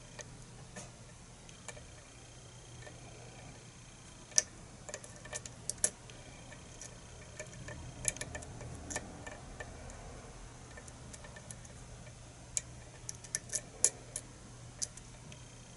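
Small, sharp clicks of a lock pick working the pins inside a pin-tumbler lock cylinder during single-pin picking, coming irregularly and in small clusters, over a faint steady hum.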